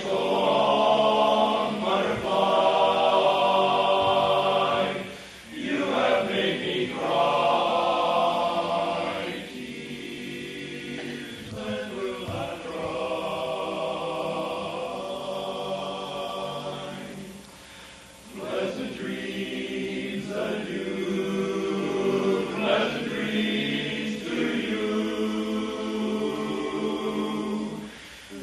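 Men's barbershop chorus singing a cappella, in long phrases of held chords with short breaks about five seconds in and again around eighteen seconds. The opening phrases are loud and the middle passage softer.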